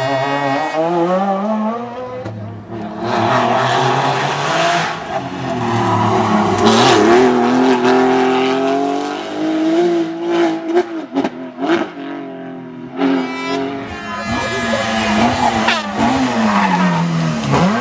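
Rally cars, one of them a Porsche 911, taking a tight hairpin one after another. Each engine drops in pitch under braking, then revs hard up through the gears out of the bend. Near the middle the engine sound breaks up into a quick series of sharp pops.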